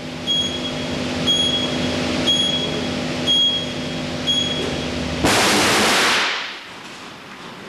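A steady hum with a high beep about once a second, five times. About five seconds in comes a sudden loud blast lasting about a second: a 400 amp moulded case circuit breaker failing in a short-circuit test with a massive arcing fault. It fades to a low hiss.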